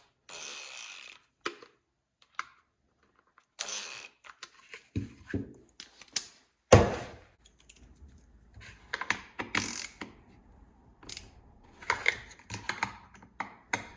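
Intermittent clicking, rattling and knocking of tools and metal-and-plastic parts as the carburetor mounting screws are run in, with one loud knock about seven seconds in.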